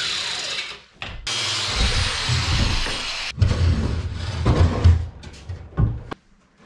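A hand-held electric power tool runs and winds down with a falling whine, then runs again. That is followed by a stretch of uneven clattering and heavy thumps.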